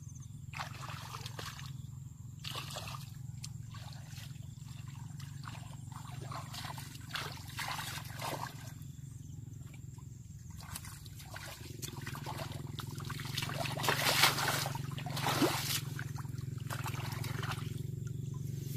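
Water splashing and trickling in short irregular strokes, over a steady low hum, louder for a couple of seconds about fourteen seconds in.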